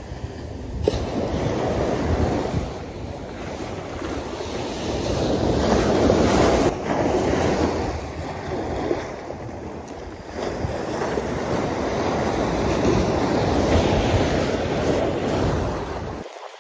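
Surf breaking and washing up a beach against a sea wall, swelling and easing every few seconds, with wind buffeting the microphone. The sound drops away abruptly near the end.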